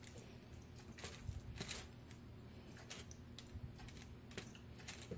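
Metal spoon stirring mashed potatoes, corn and gravy in a paper food tray: faint, irregular light clicks and scrapes of the spoon against the tray, a few a second, over a steady low hum.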